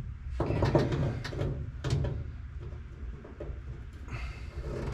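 Rubbing, scraping and light knocks of rubber weatherstripping with metal gripping inserts being worked by hand onto the truck cab's door-opening flange at a tight bend, busiest in the first two seconds.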